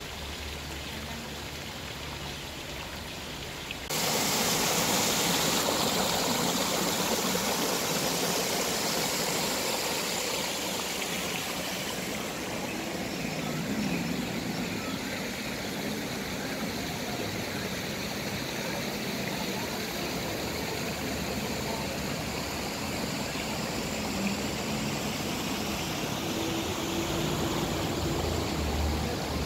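Steady rushing noise of running water, jumping suddenly louder about four seconds in.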